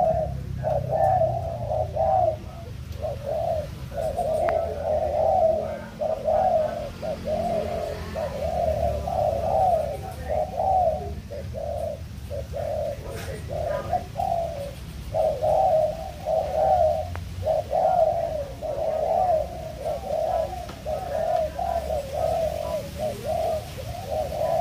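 Spotted dove cooing over and over, phrase after phrase of low coos separated by short pauses.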